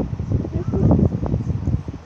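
Low rumbling, crackling noise on the phone's microphone, typical of wind or handling rubbing across it.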